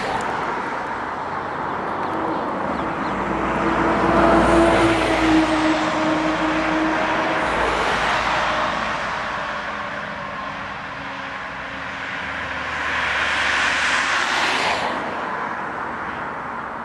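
Jet engine noise of a Boeing 747 landing and rolling out on the runway: a steady rush that swells twice, about four seconds in and again about thirteen seconds in.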